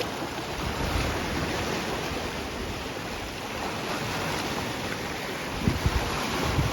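Sea waves washing steadily against the shore, with wind buffeting the microphone in low rumbles that come stronger near the end.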